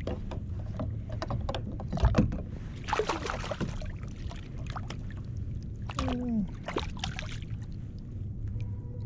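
Water splashing and knocks as a flounder is gripped by hand and lifted out beside a kayak's hull. The loudest is a sharp knock about two seconds in, and there is a short falling tone about six seconds in.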